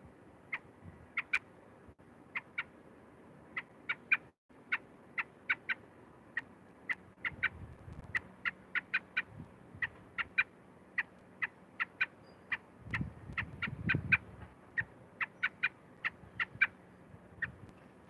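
American robin giving short, sharp calls close to the microphone, repeated at irregular intervals and at times two or three a second. A low rustle of movement in the nest comes about two-thirds of the way through.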